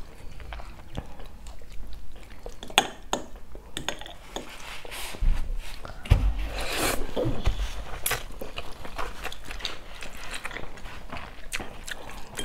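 Eating at the table: metal forks clicking and scraping on ceramic pasta bowls, with a mouthful of spaghetti slurped in and chewed about halfway through.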